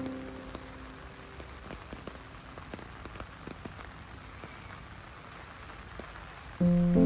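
Steady rain falling on wet paving and puddles, with separate drops ticking close by. Background music fades out at the start and comes back in loudly near the end.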